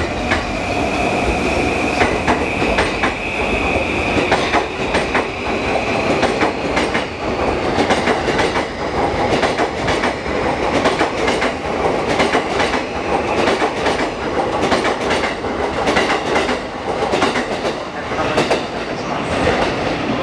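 Yamanote Line E235-series electric commuter train running past on the adjacent track, its wheels clacking over the rail joints in a long run of clicks. A high steady whine sounds for the first few seconds.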